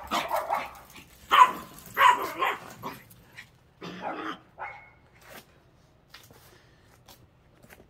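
A dog barking in a run of short barks, the loudest about one and a half and two seconds in, stopping after about five seconds.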